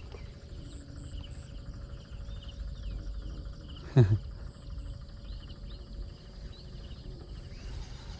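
Insects, crickets and the like, trilling steadily at a high pitch with repeating chirps over a low rumble. About four seconds in there is one short, loud, falling voice-like cry.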